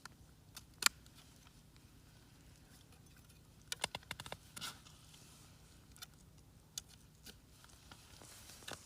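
Scattered faint clicks and knocks of ice-fishing tip-ups and tackle being handled, with a quick run of clicks about four seconds in.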